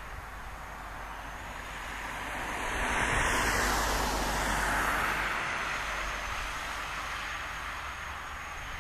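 A vehicle passing by: a rushing noise that swells about three seconds in and fades again by about six seconds.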